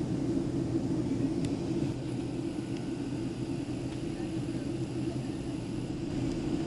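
Steady cabin noise inside a Boeing 767-300 airliner in flight: the even rumble and hum of the engines and the airflow. A faint high-pitched tone comes in about two seconds in and stops near the end.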